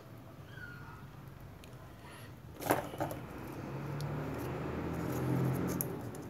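Small handling noises of wires and plastic insulating sleeving on a workbench, with one sharp click nearly three seconds in. A low rumble then swells and fades.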